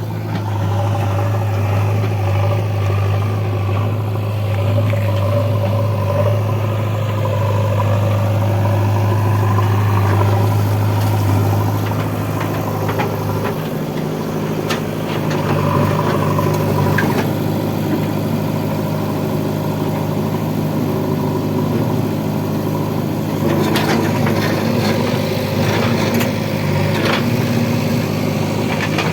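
Heavy diesel engine running steadily, its pitch rising a little about halfway through as it speeds up. A few sharp clanks come in the last third.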